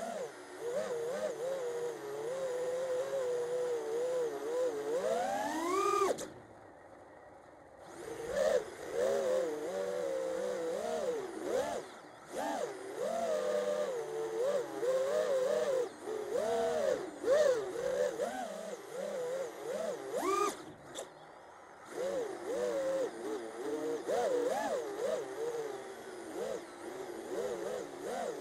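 Holybro Kopis II racing quadcopter's motors and propellers buzzing, the pitch wavering up and down with the throttle. Twice, about six seconds in and again about twenty seconds in, the pitch climbs sharply and then the sound drops away for a second or two.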